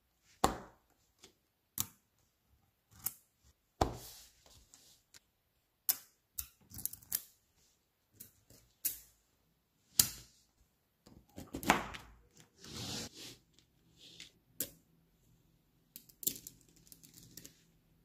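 Small magnet balls clicking and snapping together in irregular sharp clicks, some in quick clusters, as layers of them are split off with a card and blocks are pressed into place, with a stretch of scraping and rustling about two-thirds of the way through.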